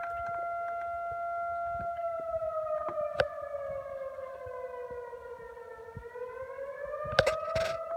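Federal Signal STH-10 fire siren sounding a single pitched tone for a fire alarm call. The tone holds steady at first, then slowly sags in pitch through the middle and climbs back up near the end.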